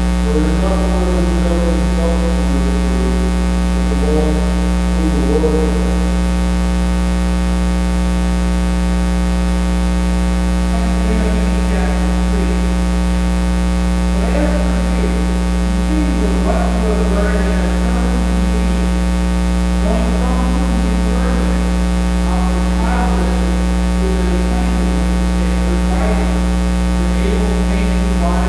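Loud, steady 60 Hz electrical mains hum in the audio feed, a low buzz with a stack of overtones. Faint, indistinct voices are heard under it at times.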